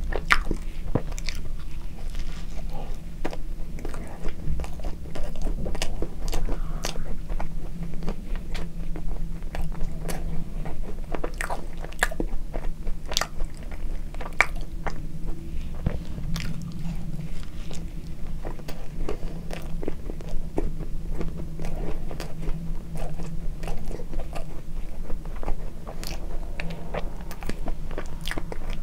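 Close-miked chewing of a soft cream-filled bun, with many small wet mouth clicks and smacks in an irregular run.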